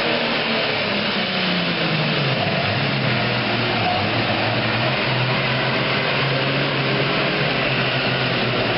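Super Farm class pulling tractor's diesel engine running hard under load, a loud steady engine note whose pitch drops a little about two seconds in and then holds.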